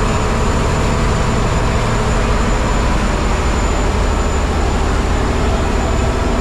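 Engine running steadily: a loud, even low drone with a constant hum underneath and no change in speed.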